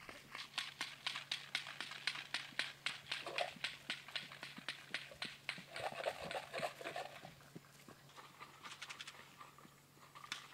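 Hoofbeats of a yearling horse trotting loose on grass: a quick, even run of sharp beats, about four a second, that thins out after about eight seconds.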